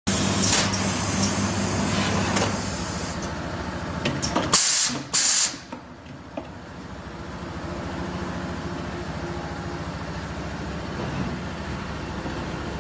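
Semi-automatic PET bottle blowing machine running with a steady mechanical hum. About halfway through come two short, loud hisses of compressed air from its pneumatics.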